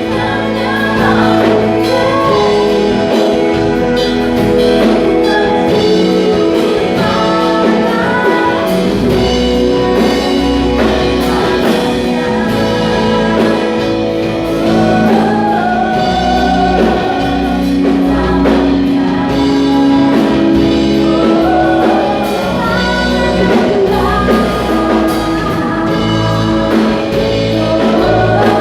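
Worship band playing a gospel praise song, with lead and backing singers over held keyboard and guitar chords, bass and drums.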